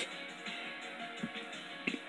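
Faint background music of steady held tones, with a couple of small ticks near the end.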